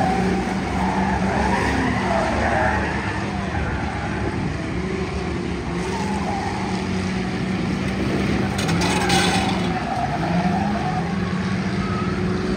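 Ford Crown Victoria race cars' V8 engines running hard on track with tire skidding. The main engine note eases off about eight seconds in and climbs again soon after, with a brief hissing burst of skidding in between.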